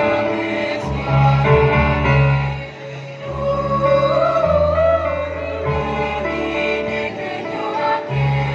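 Junior high school choir singing in parts, holding sustained chords that change every second or two over low held notes, with a brief softening about three seconds in.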